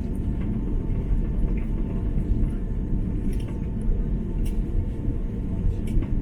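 Cabin noise of an Airbus A330-300 airliner taxiing after landing: a steady low rumble from the engines at idle and the wheels rolling, with a faint steady tone and a few light clicks.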